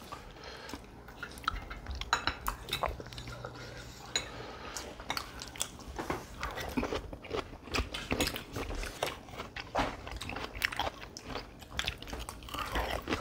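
Eating at a table: chewing, and cutlery clinking and scraping against plates and dishes in many small irregular clicks.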